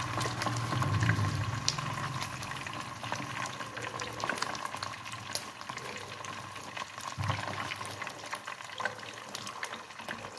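Small sun-dried croakers frying in oil in a pan, sizzling steadily with scattered crackles and pops. A faint steady whine runs underneath.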